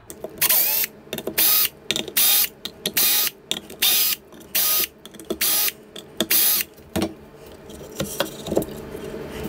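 KIMO cordless drill/driver running in short bursts, one after another, as it backs out the Phillips screws holding a speaker's terminal plate. Near the end come a few sharp clicks and light knocks as the plate is handled.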